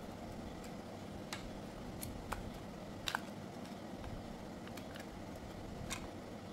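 Scattered sharp clicks of small hair-clipper parts and tools being handled while the clipper is taken apart, about seven in all, the loudest a quick double click about three seconds in, over a steady low background rumble.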